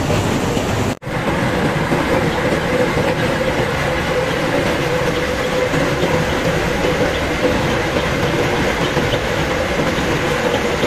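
Running flour-mill machinery makes a loud, steady din with a constant hum running through it. The sound cuts out for an instant about a second in.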